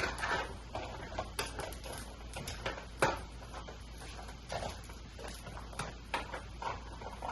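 Scattered light clicks and knocks of kitchen handling, with one sharper knock about three seconds in.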